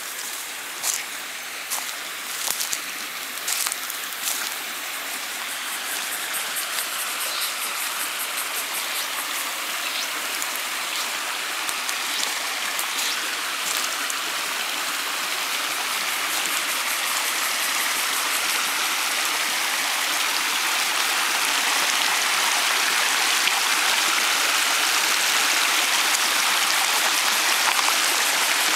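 Shallow rocky creek rushing over rapids, growing steadily louder as it is approached. Footsteps crunch on dry leaf litter and twigs over the first half.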